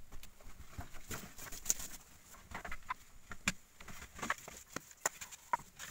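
Irregular scrapes and short taps of a bamboo hand tool digging into packed soil.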